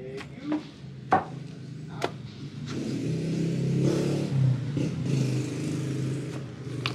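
A wooden pestle (pambayo) thuds into a wooden mortar (lusong) of soft nilupak mash, four dull thumps in the first two seconds. A louder steady rumble then takes over for the middle few seconds, its source unseen.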